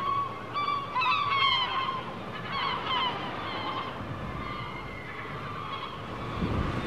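Gulls calling: a run of short, repeated cries over a steady background hiss, thinning out after about three seconds.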